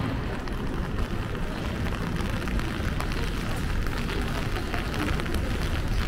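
Steady rain, with scattered drops ticking close by, over a low, even rumble of city street noise.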